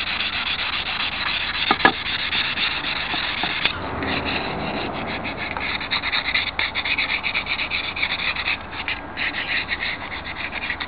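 Sandpaper being rubbed by hand over an unfinished wooden craft blank, a steady rasping scrub. About four seconds in it changes to quick, short strokes along the edge. This is light sanding to scuff the surface so paint will take.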